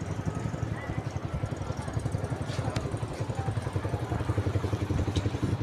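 A small motorcycle engine running nearby with a fast, even low putter that gets a little louder after the middle, and a couple of brief clicks on top.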